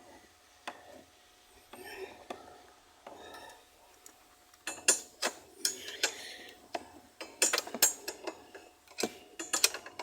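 Metal spanner clinking against nuts and bolts while tightening them by hand. A few soft scrapes come first, then a quick run of sharp metallic clinks from about halfway through.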